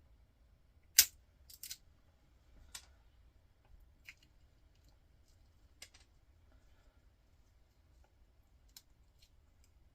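Plastic top of a small transformer being broken off by hand tools: one sharp snap about a second in, two more close after it, then a few lighter clicks and ticks.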